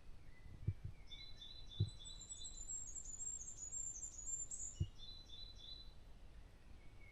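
Small songbirds singing: a run of very high, thin repeated notes that ends in a short flourish, alongside a lower series of repeated notes. A few dull low thumps come over the birdsong, the loudest sounds here.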